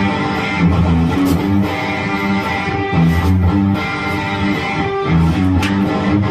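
Background music led by guitar, with bass notes changing about once a second.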